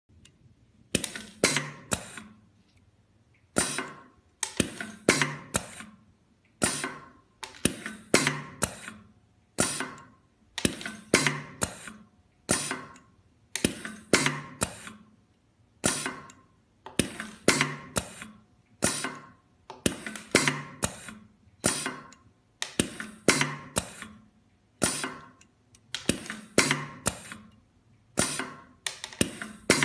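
Automatic axial lead feeder indexing a taped strip of axial resistors, its mechanism snapping with sharp metallic clacks, often in pairs, about once a second, each followed by a short ringing tail.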